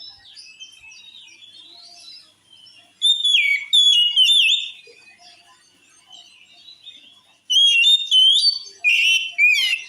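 Oriental magpie-robin (kacer) singing vigorously in loud whistled, sliding phrases. There are two bouts, one about three seconds in and one near the end, with quieter twittering between them. It is the kind of song played to provoke other male magpie-robins.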